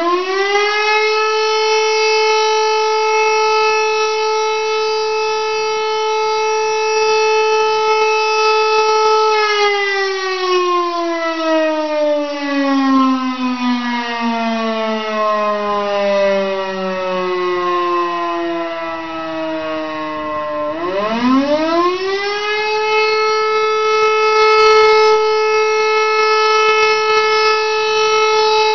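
Elektror electric motor siren sounding the fire-alarm signal. It holds a steady wail for about nine seconds, then winds down in a long falling tone as the power cuts for the break between blasts. About twenty-one seconds in it spins back up to the same steady wail.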